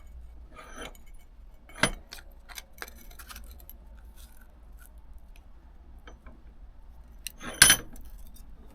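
Light metallic clinks and knocks as a cut piece of sheet steel and tools are handled at a bench vice, ready to bend a crease in the metal. A sharp knock comes about two seconds in, and the loudest, ringing clink comes near the end.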